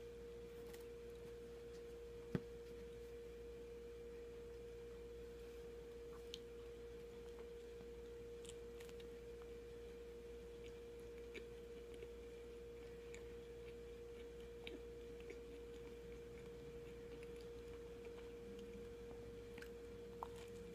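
Quiet room with a steady faint tone throughout and a few small clicks and ticks, the sharpest about two seconds in, from soft sandwich bread being handled, bitten and chewed.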